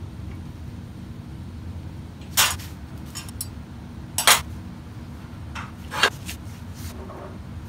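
Metal clinking and knocking as a tool and hands work the steel vise and blade guides of a horizontal band saw while the blade is squared: three sharp clinks about two seconds apart with lighter taps between, over a steady low hum.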